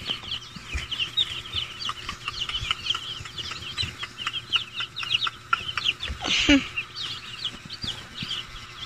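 A flock of day-old broiler chicks peeping constantly, many short high chirps overlapping. About six and a half seconds in, a brief louder noise stands out over the peeping.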